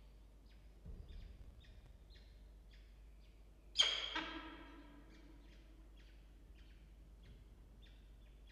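Peregrine falcon chicks peeping faintly and repeatedly, a few short high chirps a second, as they beg while being fed. About four seconds in comes one much louder call that trails off over about a second.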